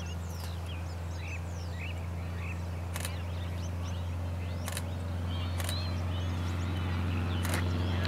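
Light single-engine propeller plane taking off and climbing: a steady low engine drone that grows slightly louder. Birds chirp over it, and there are four sharp clicks.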